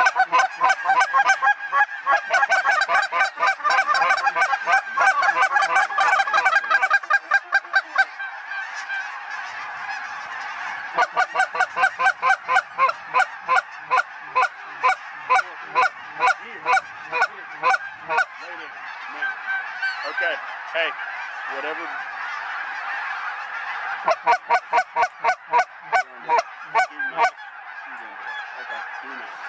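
A huge flock of snow geese calling in flight, a dense continuous chorus of high honking and yelping. Through it runs a loud rhythmic pulsing of about three beats a second, which stops and starts several times.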